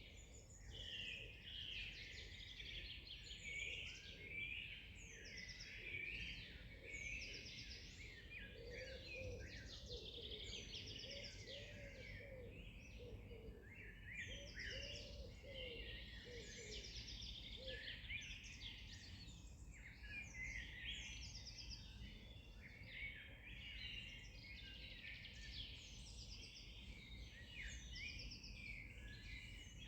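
Many wild birds singing and chirping at once, a dense chorus of high trills and chirps. Through the middle, a lower-pitched call repeats steadily over and over, all over a faint low background rumble.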